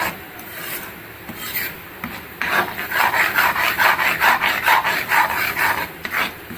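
Spatula scraping and stirring gram flour (besan) roasting in ghee in a pan, in quick repeated strokes, lighter at first and stronger from about two seconds in.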